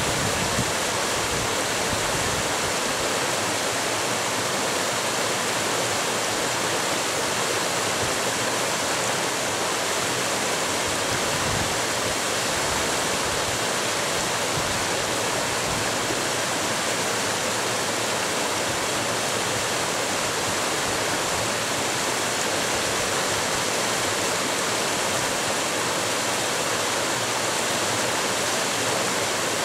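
Mountain creek water rushing and splashing steadily over boulders in a small cascade.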